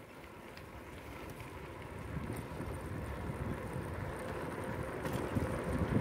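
Wind buffeting the microphone and a bicycle's tyres rolling on asphalt, a low rushing rumble that grows steadily louder as the bike gathers speed.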